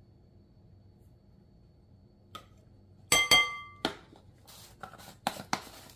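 Kitchen clatter while measuring spices: a bright, ringing clink about three seconds in, as a metal measuring spoon strikes glass, followed by several lighter clicks and knocks as the spice bottle and spoon are handled and set down.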